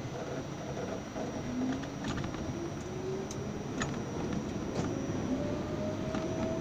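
R68A subway train pulling out of a station and gathering speed: the traction motor whine rises steadily in pitch over the train's running noise. A few sharp clicks are heard along the way.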